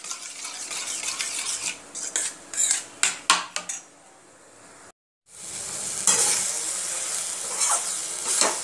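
A steel spoon stirring whisked yogurt in a steel bowl, clinking against the sides in uneven strokes. After a short break about five seconds in, a mash of steamed brinjal frying in a pan with a steady sizzle as it is stirred.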